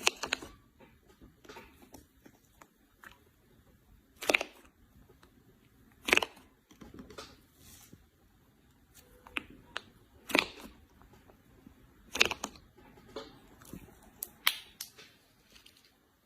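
White slime being squeezed and stretched by hand, giving a sharp pop about every two seconds with faint crackles and clicks in between.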